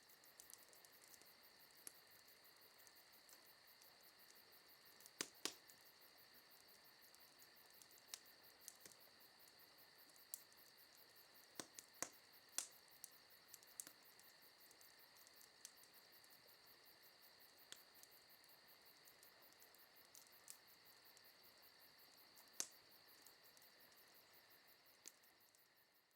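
Faint steady chirring of crickets, with sparse sharp pops from a wood campfire crackling, about fifteen over the stretch, the loudest pair about five seconds in.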